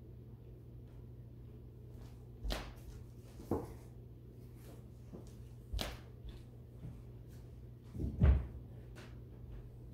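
Knocks and thumps of furniture being moved, the loudest a little after eight seconds in as a wooden dining chair is set down on the floor. A steady low hum runs underneath.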